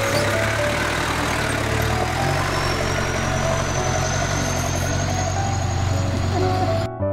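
Toyota Land Cruiser 40-series engine running at low revs as the truck crawls over a rocky track, with a faint high whine rising slowly from about two seconds in. It cuts off abruptly near the end, giving way to piano music.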